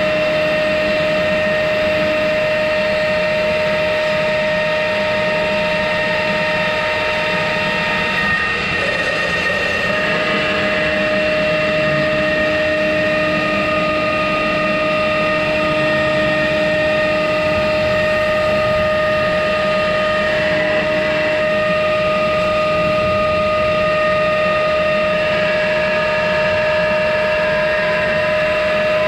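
CNC router spindle running with a steady high whine while its spiral bit cuts through wood, with the rasp of the cut beneath. The whine wavers briefly about nine seconds in.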